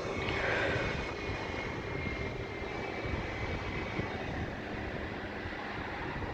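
Jet engines of a taxiing Airbus A320-family airliner running at low taxi power, a steady distant engine noise. A brief falling whine comes in the first second.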